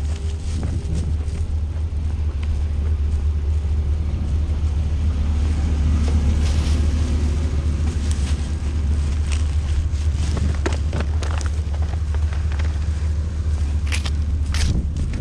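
Steady low engine drone, with a few sharp clicks near the end.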